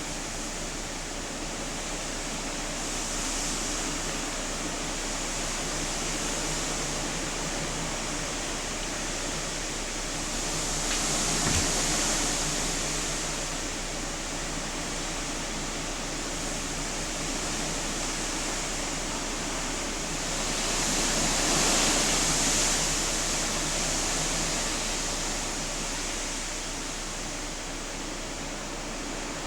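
Hurricane wind and rain: a steady noise that swells louder in two gusts, about a third of the way in and again about two-thirds in.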